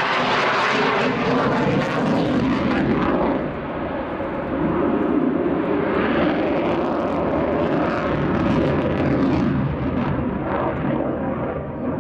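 Jet noise from a Sukhoi Su-27 fighter's twin AL-31F turbofans during a display manoeuvre. Loud and hissing for the first few seconds, it turns duller about three seconds in and then swells and eases as the aircraft turns.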